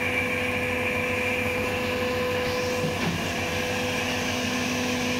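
Steady electric machine hum with several held tones over a hiss; one of the tones drops out about three seconds in.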